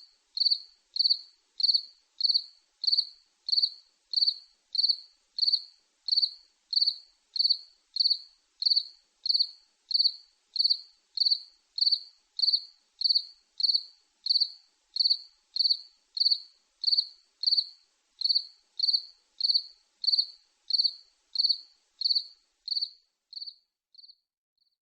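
Cricket chirping, short high-pitched chirps in a steady rhythm of about two a second; they fade away near the end.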